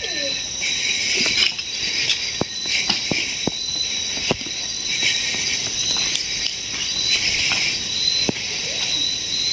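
Night chorus of crickets and other insects: a steady high trill that swells and fades in pulses about a second long. Scattered sharp clicks and pops sound through it.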